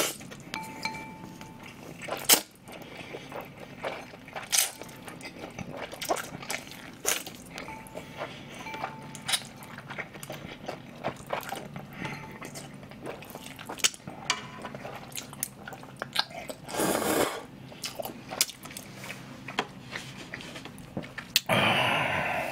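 A person eating chewy cold noodles: steady chewing with many short sharp mouth clicks, a brief slurp about three-quarters of the way through, and a longer rushing slurp or breath near the end.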